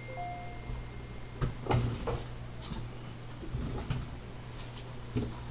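Stacked hard plastic trading-card holders knocking together and set down on a table in a few soft clacks, over a steady low hum.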